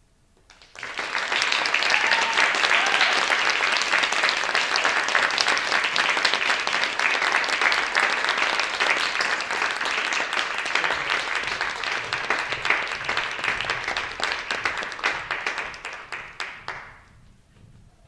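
Audience applauding, breaking out suddenly about a second in and thinning to a few last separate claps before stopping near the end.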